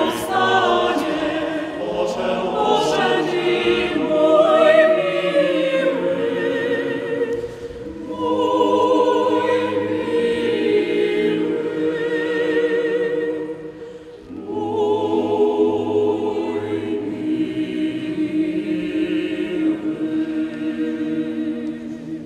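Mixed choir of young female and male voices singing in phrases, with short breaks about eight and fourteen seconds in, the last phrase ending near the end.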